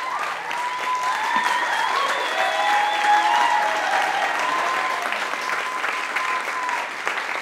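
Audience applauding, with voices whooping and calling out over the clapping.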